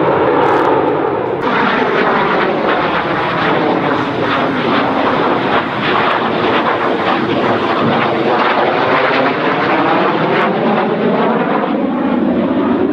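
Attack aircraft's engines running loud as the plane flies past, with a sweeping, swirling tone through the pass.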